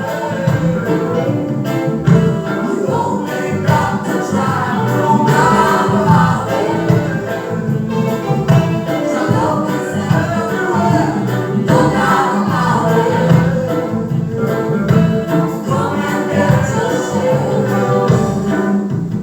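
Music: a group of voices singing together over a band with a steady beat.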